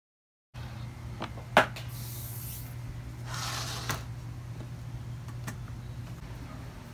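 Hands handling a MacBook in a hard shell case on an aluminium laptop stand: a sharp click about a second and a half in, then brushing and sliding, and the lid shutting with a click about four seconds in, over a low steady hum.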